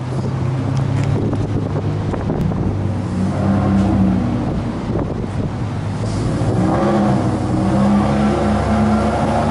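An engine idling steadily, its low hum fuller in the last few seconds, with some wind on the microphone.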